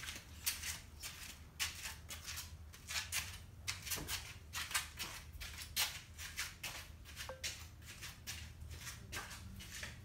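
Genie garage door in motion, its rollers and hinges creaking and scraping in quick, irregular bursts over a low steady hum.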